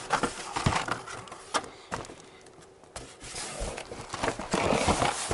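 Hands rummaging through a cardboard box of spare motorcycle parts: irregular knocks and clatters of parts against each other and the box, with rustling of cardboard and packaging, busiest in the first second and again from about three seconds in.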